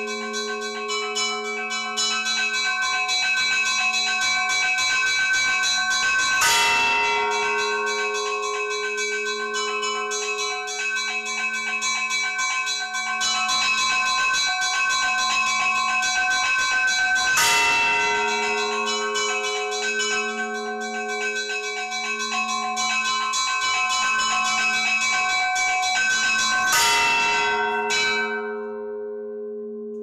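Russian Orthodox church bells ringing: smaller bells chiming rapidly over a steady hum, with a big bell struck three times about ten seconds apart. Near the end the chiming stops and the bells' ring fades away.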